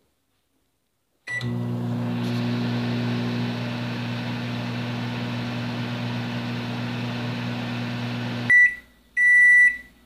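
Microwave oven: a short beep, then the oven running with a steady hum and fan noise. Near the end the hum cuts off suddenly, followed by a short beep and a longer one that signal the end of the cooking cycle.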